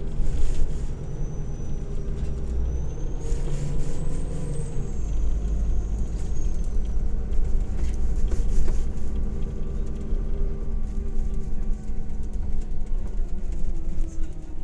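Irisbus Crossway coach heard from inside the passenger cabin on the move: steady low engine rumble and road noise. The engine note rises and then drops about four seconds in, a faint high whine glides up and down, and there are a few short rattles.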